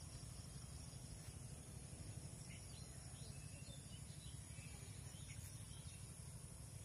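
Faint rural ambience: a steady high insect drone with a few short, faint bird chirps, over a low rumble on the microphone.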